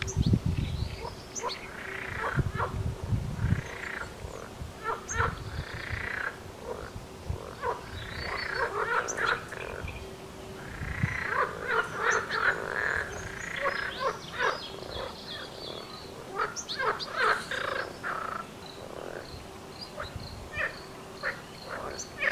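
Frogs croaking in repeated calls about a second long, every few seconds, with short high peeps scattered between them.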